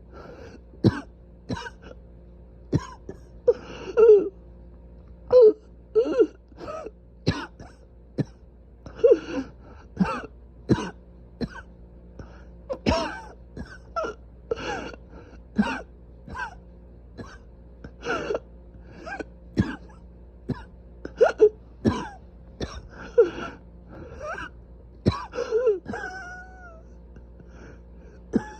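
A person coughing again and again, short coughs and throat-clearing at irregular spacing, roughly one to two a second, the cough of severely inflamed airways.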